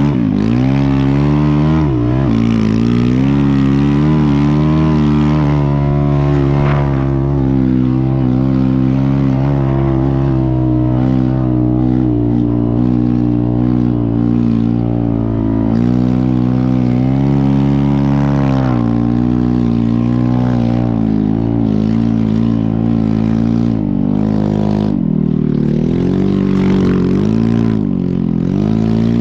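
Snow bike's motorcycle engine running under load at a mostly steady pitch, the revs dropping and climbing again at the start and once more near the end.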